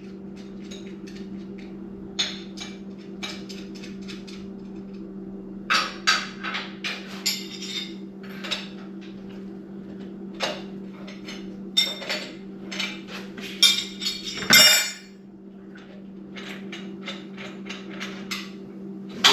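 Irregular light metallic clinks, taps and knocks of hand tools and small metal parts being handled, over a steady low hum. About fourteen and a half seconds in there is a louder, longer scraping rattle.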